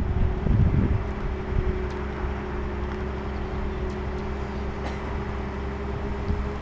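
An engine running steadily at a constant pitch, driving the winch that hauls the railway coach along the track, with wind rumbling on the microphone.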